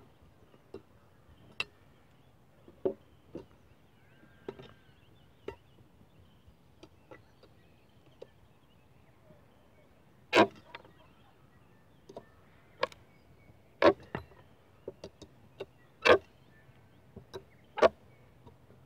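A hand nail puller working nails out of old wooden fence posts. It makes irregular sharp metal knocks and clicks against the wood, sparse at first and louder and more frequent from about halfway.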